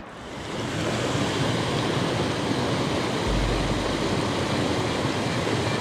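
Rushing water of a small waterfall and cascade pouring into a stream pool, a steady hiss that fades in over the first half second. A low rumble joins about three seconds in.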